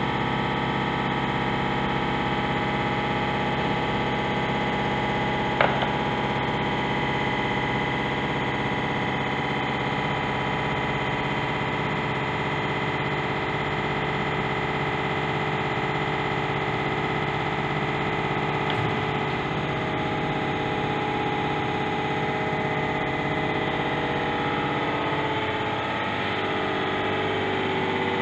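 Universal testing machine's hydraulic pump running steadily with a harsh, many-toned whine while the specimen is being loaded in tension, the load climbing. One sharp click about five and a half seconds in.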